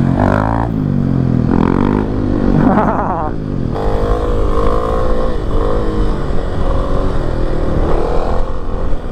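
Motorcycle engines revving during a wheelie ride, then, after a cut about four seconds in, a Kawasaki KLX300SM's single-cylinder engine running along the road, its pitch rising and falling with the throttle.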